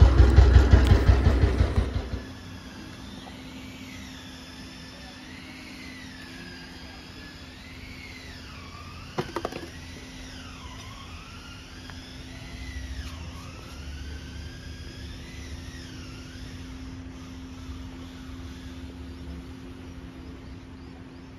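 2008 Royal Enfield Bullet Standard's single-cylinder engine idling with a steady thump for about two seconds, then cutting off. The mechanic puts the noise in this engine down to the timing gears, which need setting. After that there is only a faint steady hum with a thin tone wavering up and down above it, and a single click about nine seconds in.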